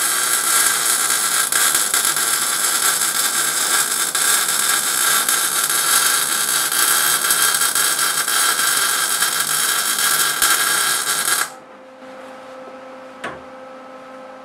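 Wire-feed welder arc burning steadily for about eleven and a half seconds as the gun traces a small square weld, then cutting off abruptly. A faint steady hum remains afterwards, with one light click near the end.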